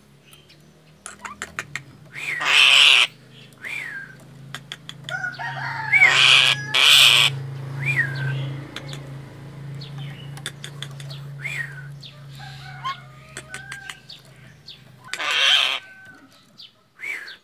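Common myna giving loud, harsh, rasping screeches in several bursts, interspersed with short whistled notes and clicks: the frightened alarm calling of a caged myna.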